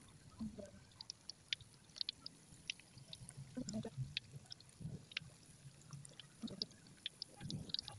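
Vegetable fritters deep-frying in hot oil in a wok: faint crackling with many short, scattered pops, and a few soft low knocks.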